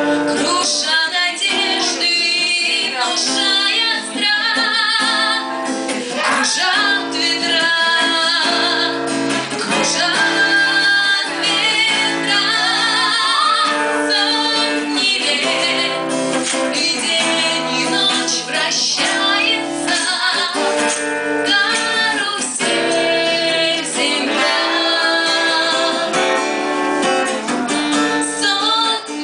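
A song with a woman singing over guitar, strummed and plucked.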